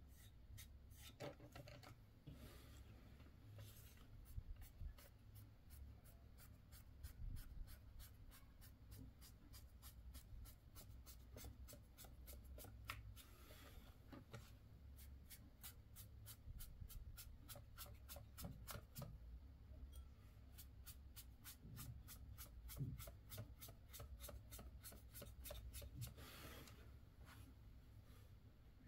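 Faint, quick scratching strokes of a brush scrubbing weathering paint onto a model, repeated steadily.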